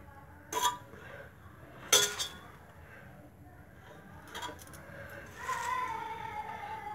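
Three sharp metallic clinks against an aluminium pressure cooker as handfuls of chopped greens are dropped in by a bangled hand; the second, about two seconds in, is the loudest. A faint, slowly falling tone follows near the end.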